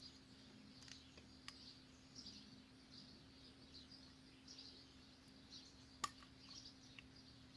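Faint birds chirping on and off over a steady low hum, with a few light clicks from the brake pad pin and caliper being worked, the loudest about six seconds in.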